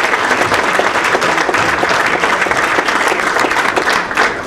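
Audience applauding after a speech: a roomful of people clapping, thinning out near the end.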